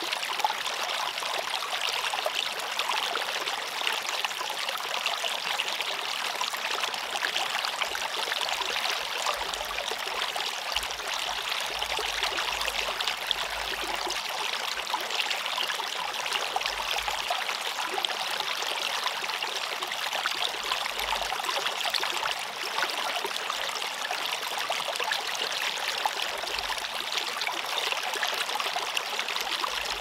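Mountain valley stream, water flowing and trickling over rocks in a steady, even rush.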